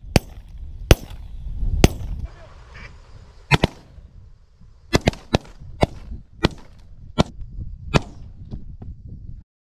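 A volley of shotgun shots from several hunters firing at geese overhead: about a dozen sharp shots over some eight seconds, some in quick pairs, with geese honking between them. The sound cuts off abruptly near the end.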